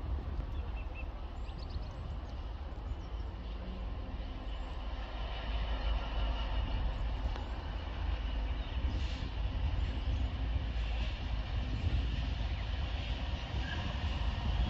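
Class 66 diesel-electric freight locomotive, with its two-stroke V12 engine, approaching with a train of biomass wagons; its low rumble slowly grows louder from about halfway through.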